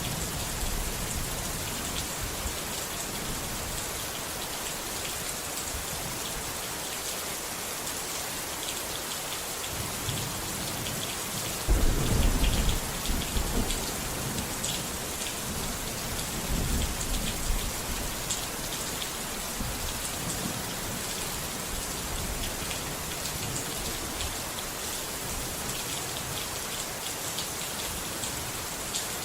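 Steady rain falling, with a low rumble of thunder about twelve seconds in and a weaker rumble a few seconds later.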